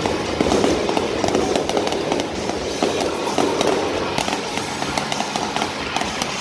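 Fireworks crackling: a dense run of rapid small pops.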